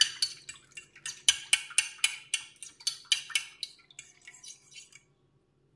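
Metal fork beating egg and milk in a glass baking dish, clinking against the glass in a quick, uneven rhythm of about three or four strikes a second, then stopping about five seconds in. The salt and black pepper are being mixed into the batter for fried bread.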